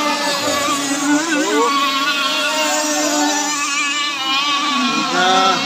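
Several radio-controlled racing powerboats running flat out at once, their small engines each at a different pitch, rising and falling as the boats speed along and turn.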